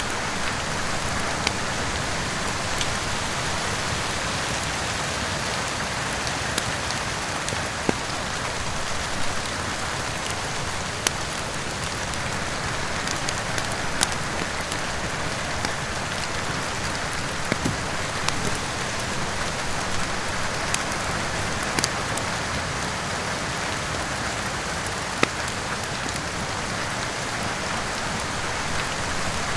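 Steady rain, with a wood fire crackling through it: scattered sharp pops every few seconds, irregularly spaced.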